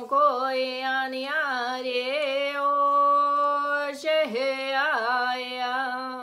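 A woman's voice chanting wordless channeled sounds, held mostly on one steady pitch while the vowel sounds shift. There is a brief break with a quick breath about four seconds in, then the chant carries on.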